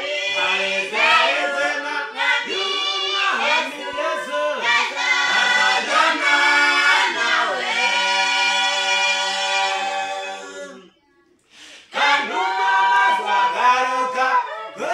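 Small mixed group of men and women singing unaccompanied in harmony. They hold a long chord, break off for about a second around eleven seconds in, then start singing again.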